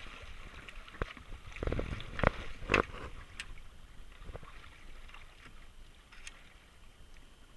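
A few sharp knocks and thumps aboard a fishing boat, four or so in the first three seconds, over a faint steady wash of sea and wind.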